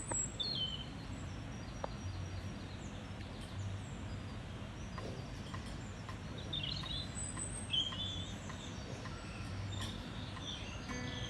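Wild garden birds chirping and trilling in short, scattered calls over a steady low background rumble.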